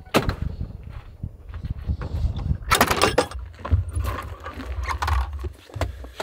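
Clicks and clunks of a wooden truck camper's door latch and handle being worked, with a loud clatter about three seconds in, over a steady low rumble.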